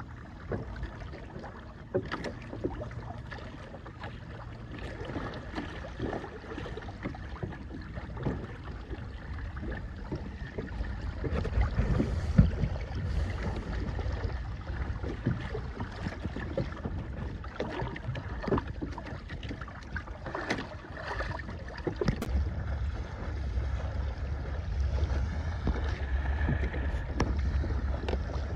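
Water splashing and lapping against the hull of a small sailing trimaran under way in light wind, with irregular small slaps and wind rumbling on the microphone, stronger about a third of the way in and again near the end.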